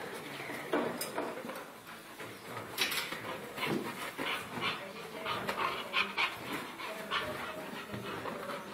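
A dog panting and whimpering as it plays tug-of-war with a toy, with many short scuffs and rustles.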